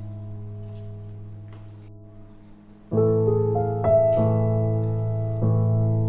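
Background piano music: a held chord slowly fades, then a new chord is struck about halfway through and further chords follow.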